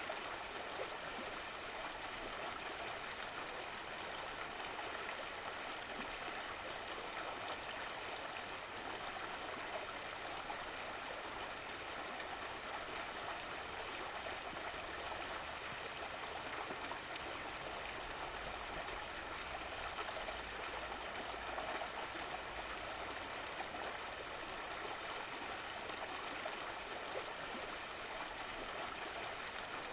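Running water of a stream flowing and trickling steadily.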